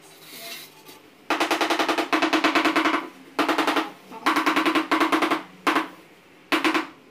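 Rubber mallet tapping a ceramic floor tile in quick runs of rapid taps, several bursts with short pauses between them, seating the tile into its mortar bed.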